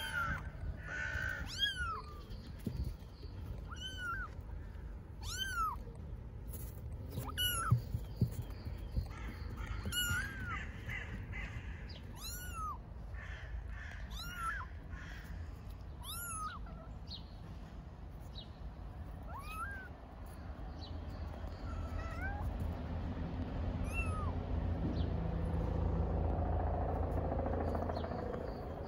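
A tabby kitten mewing: short, high-pitched calls repeated about every two seconds, a kitten calling for its mother cat. The calls thin out in the last third, while a low rumble grows louder in the background.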